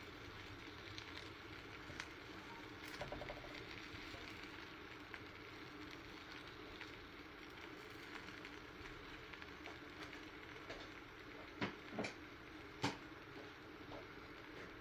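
Butter sizzling faintly in a hot pan as buns toast in it: a steady low hiss with a light crackle. There are three light knocks near the end.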